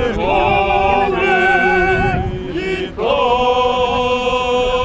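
A crowd of demonstrators singing together, several voices at once; the singing breaks briefly about three seconds in, then resumes on a long held note.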